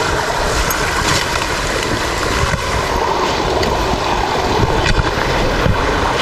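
Small rocky brook running over stones, a steady rush of water, with an uneven low rumble of wind on the microphone.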